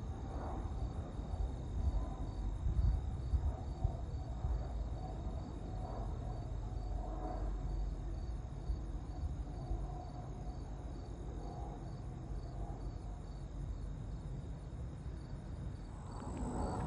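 Insects chirping steadily, a continuous high trill with a rapid pulsing chirp over it, above an uneven low rumble.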